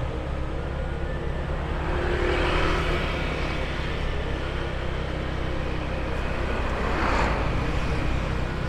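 Motorbike engine running steadily while riding along a street, with road and traffic noise that swells twice.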